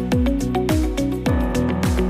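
Electronic background music with a steady kick drum, about two beats a second, over held synth tones.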